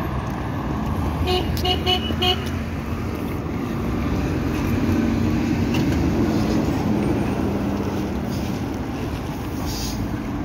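A ZiU-10 articulated trolleybus drives past close by, its running noise swelling as it goes by, with a steady hum beneath. About a second in, a horn gives four quick beeps, and near the end there is a short hiss.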